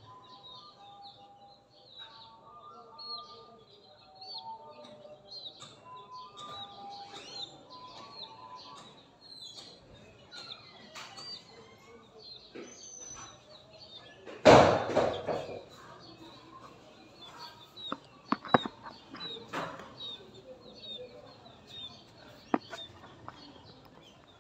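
Newly hatched Light Sussex chick peeping: short, high-pitched cheeps repeating every half second or so. A loud rustling burst comes about halfway through, followed by a few sharp clicks.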